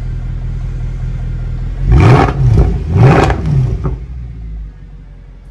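Mercedes-AMG C63 (W204) naturally aspirated V8 idling through its quad exhaust, then revved twice in quick succession about two seconds in, each rev rising and falling, before dropping back to idle.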